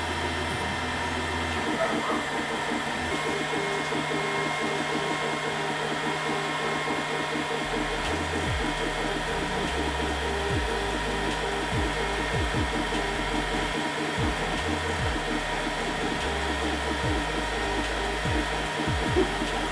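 EcubMaker TOYDIY2 laser engraver at work: the stepper motors whir and change pitch as the tool head sweeps back and forth and reverses, over the steady hum of the laser module's cooling fan.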